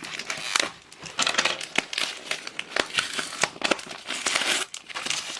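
A thin cardboard parcel being torn and pulled open by hand: irregular crinkling, rustling and ripping of card and paper packaging.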